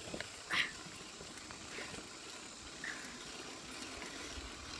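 Faint, even rushing noise of a bicycle ride along a pebbled path, picked up by a handheld phone, with a brief high squeak about half a second in.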